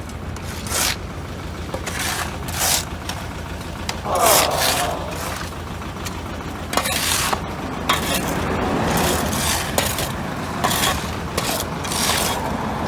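Footsteps crunching and scraping on the gravelly road shoulder, irregular steps over a steady low rumble.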